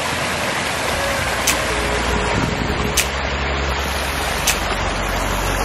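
Small mountain stream running over rocks as a steady rush of water. Under it, background music ticks about every second and a half.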